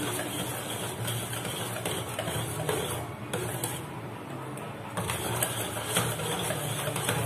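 Wire whisk beating biscuit-and-milk batter in a stainless steel bowl: fast, rhythmic strokes with the wires ticking and scraping against the bowl. It eases off for a couple of seconds midway, then picks up again.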